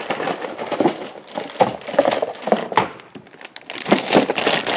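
Thin plastic bag crinkling and rustling as a chainsaw cylinder wrapped in it is handled, in irregular crackles that grow louder near the end.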